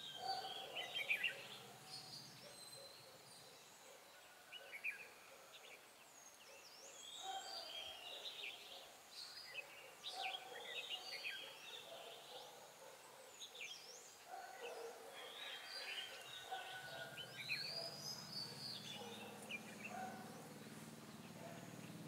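Red-whiskered bulbuls chirping and singing short warbled phrases, calls coming thick and fast. This is the fighting song of a caged decoy bulbul answered by a wild territorial bird.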